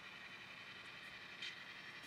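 Faint diesel engine sound from the Tsunami sound decoder in an HO-scale Athearn Genesis GP9 model locomotive, played through its small onboard speaker as the locomotive moves slowly. There is a brief hiss about one and a half seconds in.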